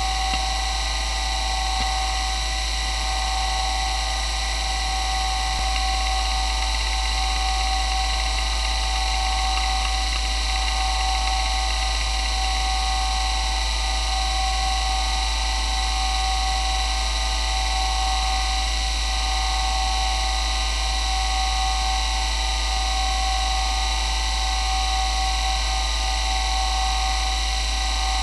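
Toshiba MK2024FC 2.5-inch glass-platter hard drive spinning at about 3,200 rpm and reading track after track in a linear read benchmark, giving a steady high whine over a low hum. The uploader says its spindle bearings are not the best.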